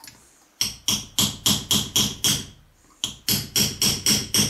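Hammer striking a thin punch to knock a press-fit ball oiler out of a rotary table from the back side: a quick series of light metallic taps, about three or four a second, with a short pause about halfway through.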